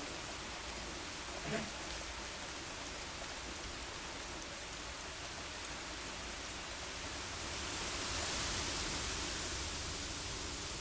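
Steady rain with wind, a dense hiss that swells louder for a couple of seconds about seven and a half seconds in. A single short tap about a second and a half in.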